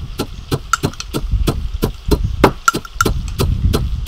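Stone pestle pounding dry grains in a heavy stone mortar, a quick regular beat of about four to five strokes a second, each a dull thud with a gritty knock.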